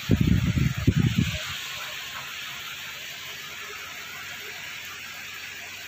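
Steady hiss of heavy rain falling. For about the first second and a half a loud, uneven low rumbling lies over it, then only the even rain hiss remains.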